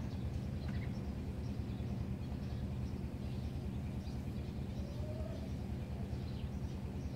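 Outdoor ambience: a steady low rumble with faint, scattered bird chirps above it.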